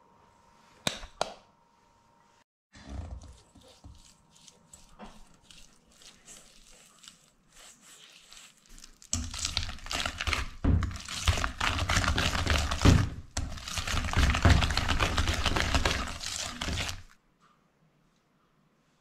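Wire whisk beating cream cheese, sugar and cornstarch in a stainless steel bowl, scraping against the metal. After two sharp taps about a second in, it stirs slowly and unevenly, then beats fast and loud from about halfway until it stops suddenly near the end.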